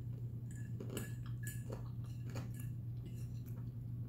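A person chewing food, with a metal fork making scattered light clicks against a plate, over a steady low hum.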